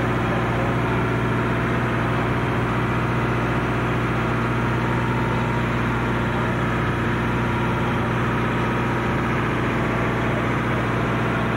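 A small boat's engine running steadily, heard from on board with water noise underneath.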